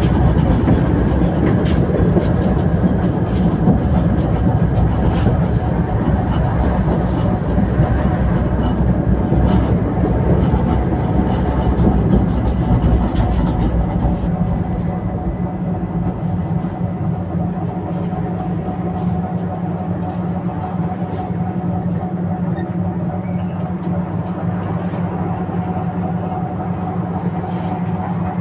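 Tatra T3SU tram running along the rails: a steady rolling and running noise with occasional sharp clicks, easing off and growing quieter about halfway through.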